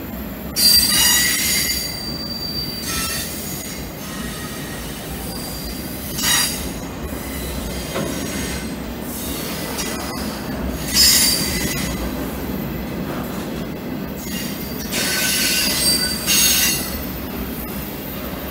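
Freight cars rolling across a steel girder bridge, a steady low rumble with their wheels squealing high-pitched in four bursts, the loudest about half a second in and near the middle.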